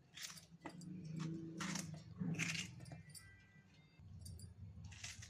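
Kitchen utensils being handled: about five light clinks and knocks at uneven intervals, over a faint steady low hum.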